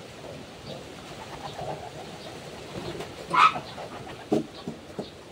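Pigeons cooing, with a short, sharp high squeak about halfway through and a few light knocks near the end.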